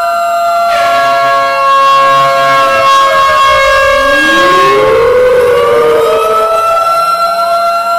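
Several sirens sounding at once: steady held tones overlaid with others gliding in pitch. Another steady many-toned sound joins about a second in and stops around five seconds in, as siren tones sweep down and up.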